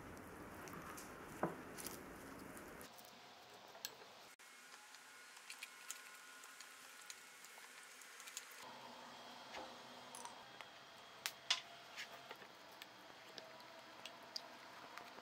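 Wooden spoon tossing a salad in a glass bowl: faint soft squishing of leaves and tuna, with scattered light clicks of wood against glass.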